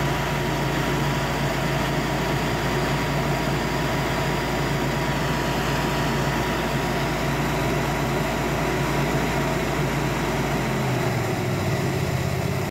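High-pressure drain-jetting unit running, its 24 HP Kohler twin-cylinder petrol engine driving a triplex plunger pump, with the hiss of the water jet spraying. The engine note changes near the end.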